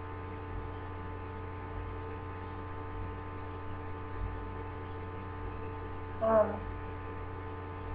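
Steady electrical mains hum with a stack of even tones, picked up by the recording microphone, and a brief vocal sound about six seconds in.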